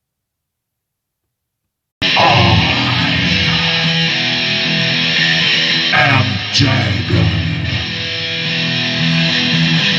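Silence, then about two seconds in, rock music with electric guitar starts abruptly and plays on loudly.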